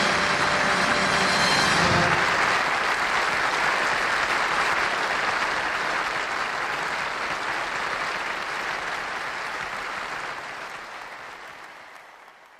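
Audience applauding, with the orchestra's closing brass chord cutting off about two seconds in; the applause then slowly fades away toward the end.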